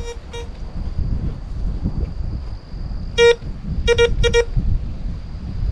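Metal detector beeping as it passes over buried metal: a couple of short beeps at the start, then one about three seconds in and a quick run of three or four shortly after. Its tone signals a metal target in the dirt, here the search for the lost excavator bucket-tooth pin. A low rumble sits underneath.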